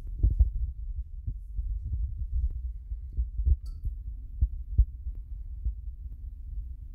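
Irregular low thumps and rumbling from a hand-held phone being handled and moved around, with a few sharper taps.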